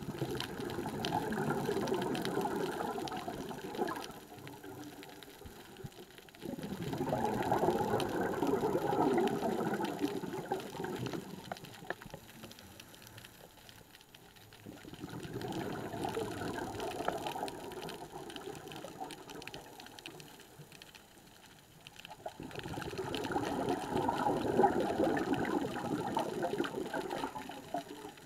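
Scuba diver breathing through a regulator underwater: four long exhalations of bubbles, each about four seconds, coming roughly every seven to eight seconds with quieter breaks between.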